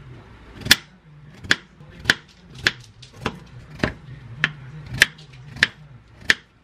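Kitchen knife cutting peach into cubes on a wooden plate: a steady run of about ten sharp taps, nearly two a second, as the blade goes through the fruit onto the wood.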